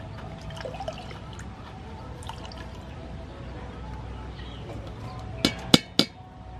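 Wet grated coconut squeezed by hand in a plastic strainer, coconut milk trickling and dripping into a steel bowl. Near the end come three sharp knocks, the strainer struck against the steel bowl.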